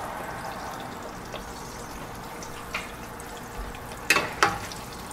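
Biscuit dough frying in hot oil: a steady sizzle. Near the end come three sharp taps of a metal utensil against the pan.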